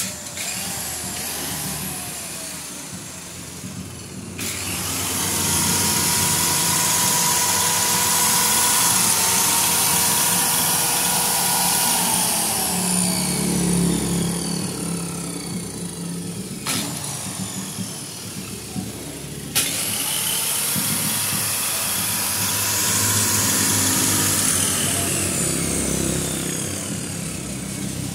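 Bitec handheld circular saw running with a high motor whine, the saw mounted on a wheeled carriage on steel rails. Its pitch glides down and back up at times, and the sound breaks off and resumes abruptly a few times.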